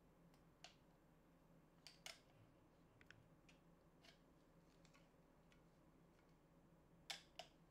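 Faint scattered clicks and taps of handling an LED tube light and pulling a small magnetic mounting pad off its end, with two sharper clicks near the end, over a near-silent room.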